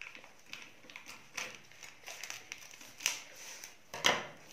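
Scissors snipping through plastic packaging wrap, with the plastic crinkling in short bursts; the loudest is a sharp clack near the end.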